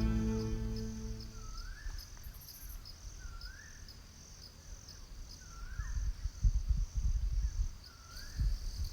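Insects chirping in a steady, high, pulsing drone, with a bird repeating a short rising call about every two seconds. Music fades out during the first second or so, and low rumbles and bumps come in during the second half.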